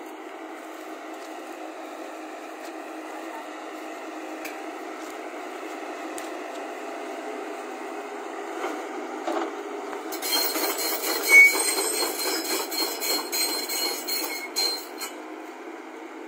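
JCB tracked excavator's diesel engine running steadily; from about ten seconds in, its steel crawler tracks clank, rattle and squeal for about five seconds as it moves and turns on the dirt, with one sharp loud clank among them.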